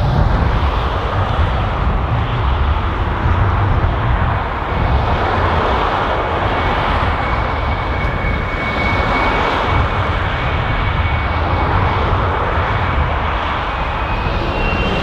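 Jet engines of an Emirates Boeing 777-300ER (GE90-115B turbofans) on departure: a steady, loud roar with a faint high whine that rises slightly near the end.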